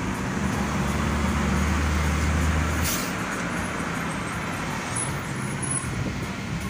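Steady engine and road noise of a car driving in traffic, heard from inside the cabin. A deeper low drone joins about half a second in and cuts off abruptly about three seconds in, together with a short click.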